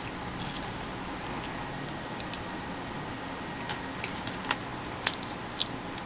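Small plastic model-kit parts clicking and clattering as fingers pick through them on a paper instruction sheet and handle them: a few light clicks about half a second in, then a cluster of sharper clicks around four seconds and two more single clicks after it.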